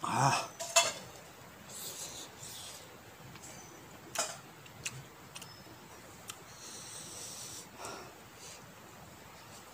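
A person eating very spicy king chilli paste, breathing hard through the mouth and nose: a loud, rough exhale in the first second, then hissing breaths around two seconds and again near seven seconds. A few light clicks and taps from fingers mixing rice on a metal plate come between them.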